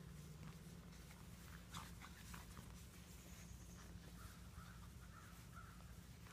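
Faint short whines and scattered scuffling clicks from six-week-old Labrador puppies at play.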